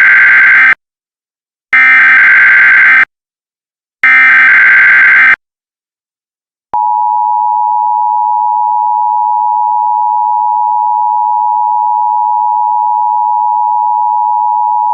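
Emergency Alert System tones: three harsh, buzzy SAME header data bursts, each just over a second long with short gaps between them, then after a pause of about a second the steady two-tone EAS attention signal, starting about seven seconds in. These are the tones that open a new alert message.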